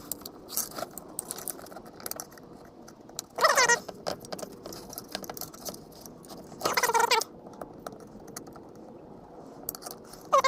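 A gasket being pried and scraped off an Edelbrock 1406 carburetor: small scratching and clicking throughout, with two brief squeaks about three and a half and seven seconds in.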